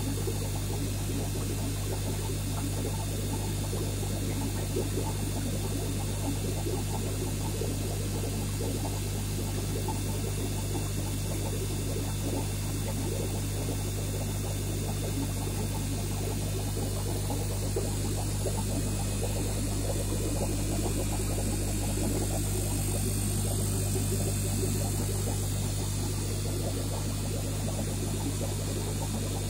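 Aquarium pump humming steadily, with a constant bubbling wash of moving water.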